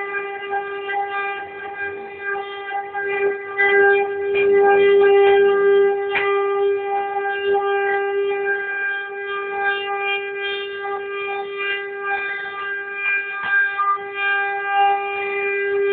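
CNC router spindle running with a steady high whine while the bit cuts wood, with frequent small crackles and clicks from the cut; it grows louder for a couple of seconds about four seconds in.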